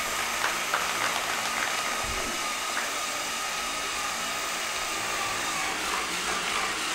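Electric drive motors of a sponge-padded tracked robot whirring steadily with a thin high whine, with a few faint knocks as it crawls down steps.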